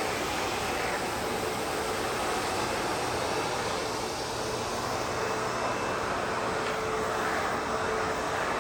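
ProTeam Super Coach backpack vacuum running steadily: an even rush of air with a faint motor whine that comes and goes.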